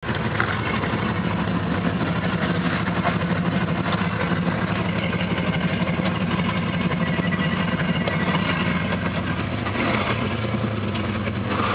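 Rock-crawling off-road vehicle's engine running steadily at low revs.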